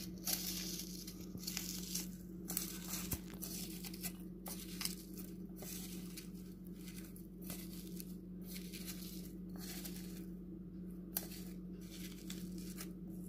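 Hands squeezing and kneading salted chopped raw red onion in a steel bowl: irregular wet crunching and crackling squishes as the onion is pressed to soften it, over a steady low hum.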